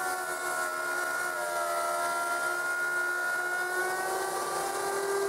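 Router in a router table cutting a dado across a plywood board, its motor running with a steady high whine. The pitch dips slightly partway through as the bit takes the load, then comes back up.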